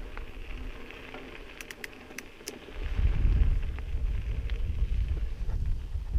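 Wind buffeting the camera microphone over the hiss of mountain-bike tyres rolling on a gravel trail, with a few light clicks about two seconds in. The wind rumble eases early on and grows louder again about three seconds in.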